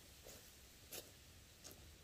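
Near silence: room tone with a few faint light clicks, the plainest about a second in.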